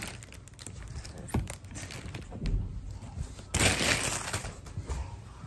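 Hands handling a homemade model of foam strips, clay balls and a stick on a bed: scattered light knocks and rustles, with a louder rustle about three and a half seconds in.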